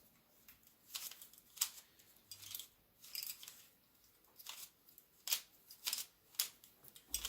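Plastic clicks and clacks of a YuLong V2 magnetic Pyraminx being turned by hand: a series of sharp, irregular clicks as its layers and tips are twisted. The puzzle is new and not yet broken in.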